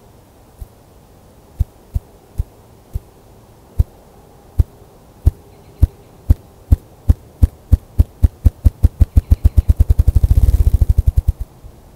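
Male ruffed grouse drumming, the territorial and courtship display of the species: deep thumps from its beating wings, slow and well spaced at first, speeding up steadily into a rapid whir that cuts off near the end.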